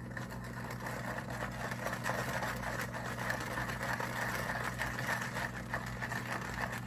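Metal spoon stirring yeast, sugar and water in a well of flour: a quick, continuous run of small scraping strokes, over a steady low hum.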